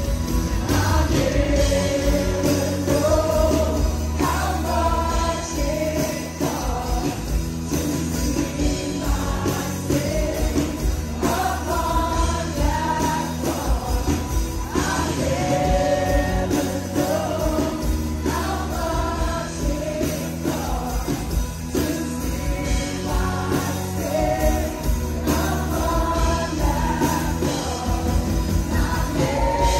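A live worship band playing and singing: several voices carrying a slow melody over keyboard, acoustic and electric guitars, bass and drums.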